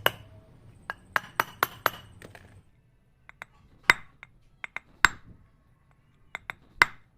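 Metal-on-metal tapping as a new bearing is knocked into a Yamaha NMAX rear CVT pulley through the old bearing used as a drift. A quick run of clinking taps comes first, then a pause, then slower, harder single strikes as the bearing is driven home.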